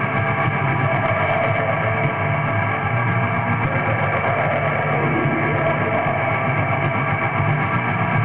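Raw lo-fi black metal: a dense, steady wall of distorted guitar and distorted bass, with a muffled top end.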